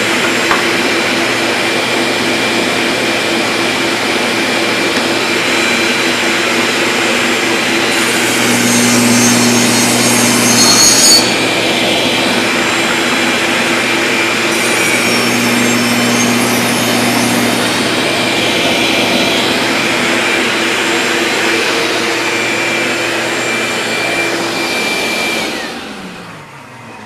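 Table saw running with a dust vacuum, the blade cutting through wood in two passes about 8 and 15 seconds in, then the saw switched off and winding down with a falling pitch near the end.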